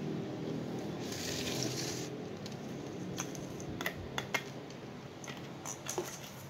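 Scattered light clicks and taps of a thin stick and small plastic toys on a tile floor as a puppy plays, with a rustling scrape about a second in. A steady low hum runs underneath.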